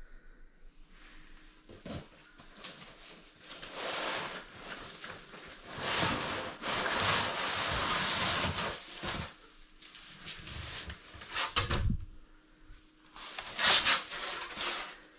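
Cardboard box and plastic wrapping being handled and pulled open: irregular rustling and scraping with scattered knocks, loudest in the middle and again near the end.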